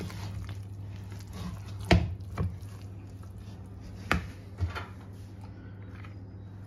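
A utensil knocking sharply against a mixing bowl twice, about two seconds apart, with a few softer clicks in between, over a steady low hum.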